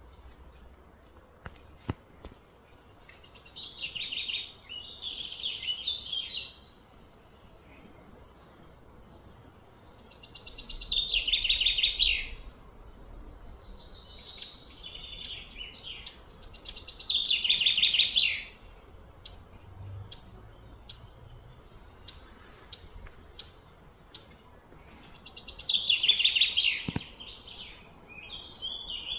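A songbird singing four phrases, each a quick run of high notes lasting two to three seconds, repeated every several seconds.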